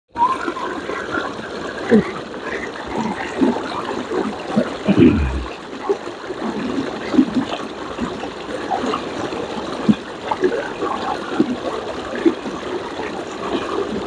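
Water rushing over a rock lip at the top of a waterfall, heard at close range: a steady rush with frequent splashes, and a low thump about five seconds in.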